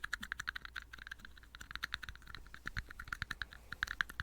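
Fast, light tapping on little red plastic cups, a quick, even run of clicks at about eight to ten a second.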